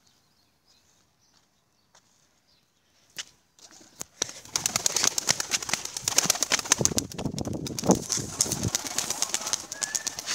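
Çakmaklı pigeon's wings flapping as it takes off: a few sharp clicks, then from about four seconds in a dense, rapid run of wing beats that keeps on loudly.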